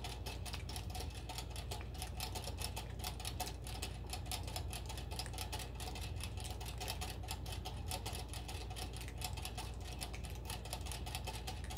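Large rabbit drinking from a water bottle's metal sipper tube: a fast, steady run of clicks from its licking and gulping.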